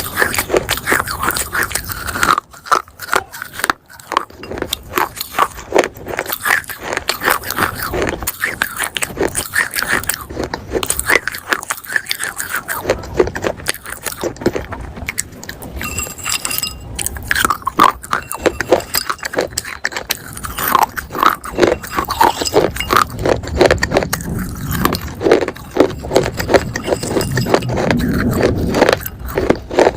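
Close-miked biting and chewing of dry baked clay pot pieces: rapid, dense gritty crunching and scraping that keeps on without a break.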